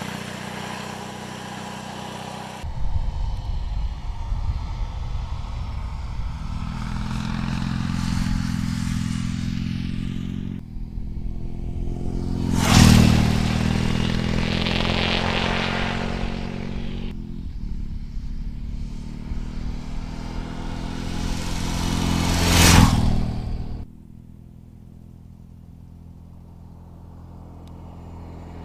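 BMW R18's 1802cc air-cooled boxer twin running as the motorcycle rides past, across several cut-together shots. It sweeps close by twice, a little under halfway and again near the three-quarter mark, each time swelling to a loud rush and falling away. Near the end it is quieter, growing louder as the bike approaches.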